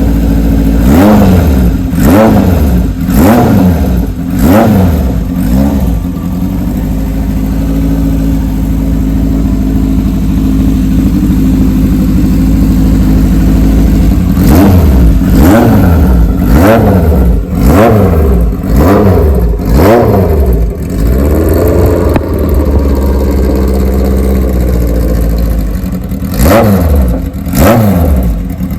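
Kawasaki KZ1000's air-cooled inline-four engine running, blipped up and back down in short revs about once a second, settling to a steady idle twice in between.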